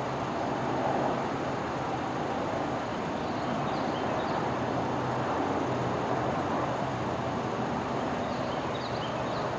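Steady rumble of a train running in the distance, an even noise with no distinct events.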